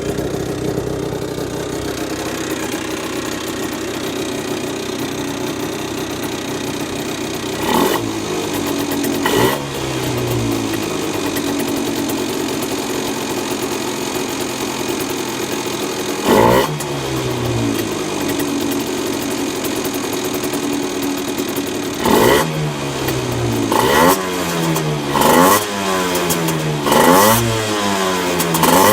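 Honda NSR50 two-stroke single-cylinder engine idling, then blipped several times, each rev rising sharply and falling back to idle, the blips coming quicker near the end. The engine carries an abnormal noise that the owner suspects comes from the crankshaft big-end bearing or the balancer bearing.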